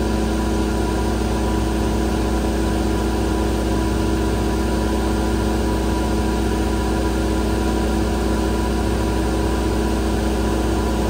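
A 60 kW standby generator running steadily under load from a resistive load bank, its engine drone mixed with the rush of the load bank's cooling fans. The hum holds one pitch and one level throughout, with no change in speed.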